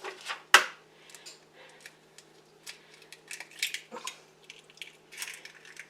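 Kitchen dishes and utensils knocking and clinking: one sharp knock about half a second in, then scattered light taps.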